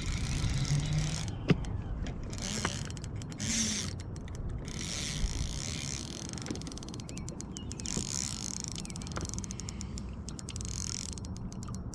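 Spinning reel being cranked to retrieve line, a steady mechanical whir from its gears with scattered clicks and one sharp click about a second and a half in.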